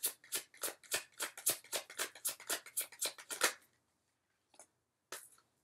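Tarot deck being shuffled by hand: a quick, even run of card slaps, about five a second, stopping about three and a half seconds in, followed by a couple of single soft taps as cards are handled.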